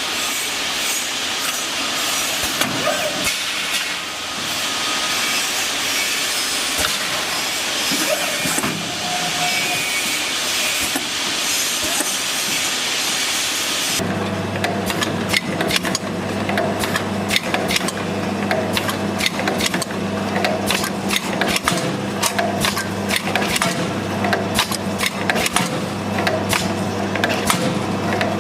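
Automatic bowl filling and sealing line running, the sound of packaging machinery at work. For the first half it is a dense, steady noise with hiss. About halfway the sound changes to a steady low motor hum with many quick clicks and clatters from the moving parts.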